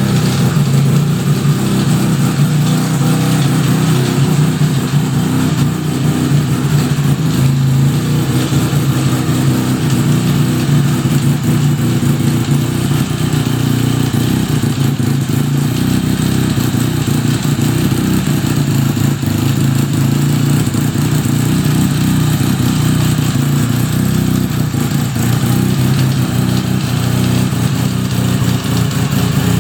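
1975 Suzuki RE5's single-rotor Wankel engine running steadily, with the abnormal noise the owner traces to the transmission after the restoration.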